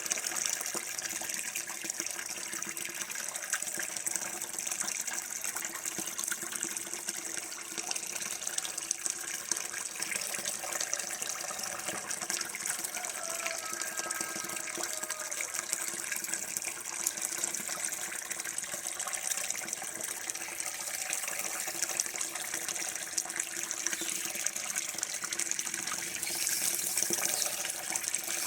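Running water flowing steadily, an even rushing hiss with faint gurgling, slightly louder near the end.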